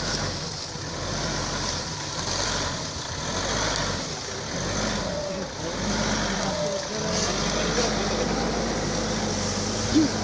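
Nissan Navara pickup's engine running at low revs as it crawls uphill in four-wheel-drive low range through tall grass, with a steady engine note that firms up about halfway through. Faint voices are in the background, and there is a brief thump near the end.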